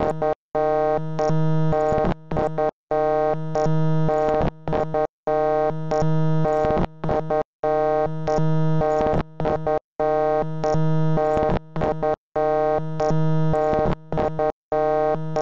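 A harsh, buzzy electronic tone played in a choppy loop: a held note broken by short stuttering blips, repeating about every two and a half seconds.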